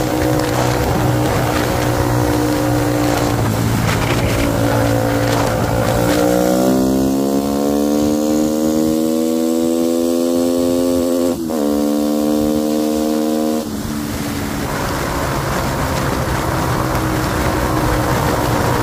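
Honda CBR250R single-cylinder engine pulling hard under acceleration, its note climbing steadily. There is a quick break in the note, like a gear change, a little past halfway, and it drops away near the end as wind rush takes over.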